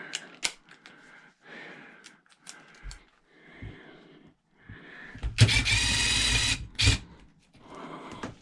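Small clicks and knocks of handling parts, then, about five seconds in, a power drill runs steadily for just over a second, followed by a brief second burst.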